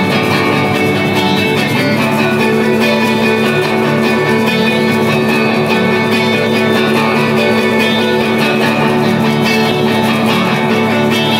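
Background music led by guitar, steady and loud.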